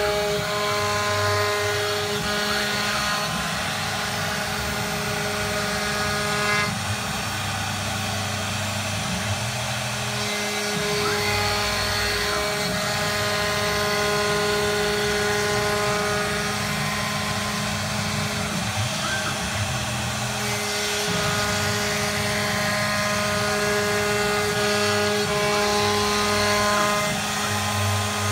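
Three-spindle CNC router carving a wooden door panel: the machine runs steadily, a set of steady whining tones over the noise of cutting, with some tones dropping out and coming back every few seconds.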